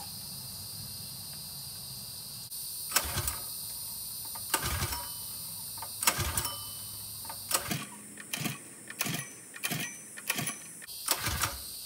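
Predator 212cc single-cylinder four-stroke engine being cranked by its recoil pull-starter: about ten pulls, each a short whir, coming quicker in the second half. The engine never fires, because the kill switch is left off and there is no spark.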